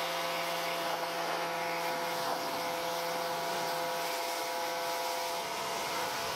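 Wholesun 3000 PSI electric pressure washer running steadily: a steady motor and pump hum under the hiss of the water jet spraying onto a car body.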